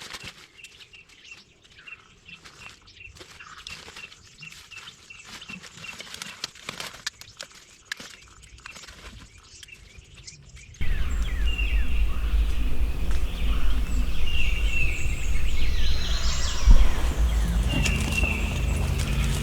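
Songbirds chirping at dawn, at first faint with scattered light crackles, then, about eleven seconds in, suddenly louder over a steady low rumble.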